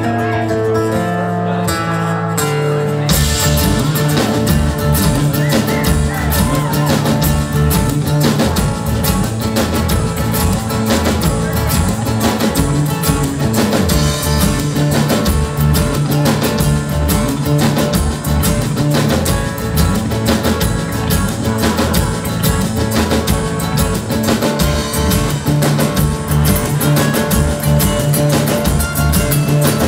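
Live rock band playing: an electro-acoustic nylon-string guitar, an electric bass and a drum kit. The first few seconds hold only sustained notes, then the full band comes in with drums about three seconds in and keeps a steady beat.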